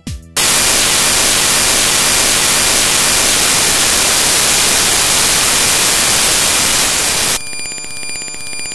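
Loud hiss of static white noise that cuts in abruptly just after the start and holds steady. About seven seconds in it drops to a quieter electronic ringing made of rapid, even pulses.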